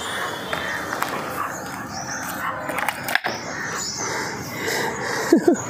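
A golden retriever puppy stepping into a plastic tray over a steady background hiss: a few light knocks, then one sharp knock about three seconds in. Two short high squeaks come near the end.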